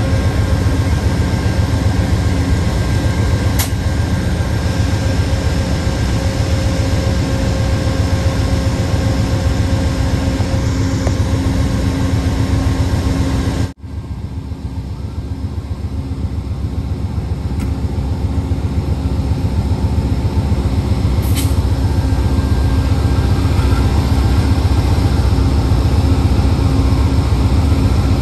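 Amtrak GE Genesis diesel-electric locomotives idling with the train standing at the platform: a steady low rumble with a few steady tones over it. The sound cuts out for a moment about halfway through, then returns.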